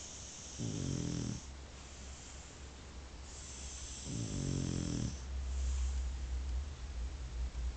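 Snoring: two long snores about three and a half seconds apart, each a low buzzing tone with a breathy hiss around it. A steady low rumble runs underneath and grows louder in the second half.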